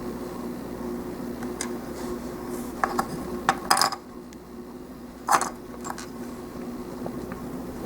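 Small hard plastic model-kit parts clicking and tapping as they are handled and fitted, a scattering of short sharp clicks with the loudest about five seconds in, over a steady low hum.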